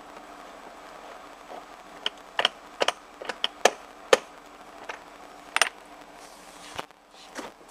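A run of about a dozen irregular, sharp metallic clicks and taps over a few seconds, over a steady low hum.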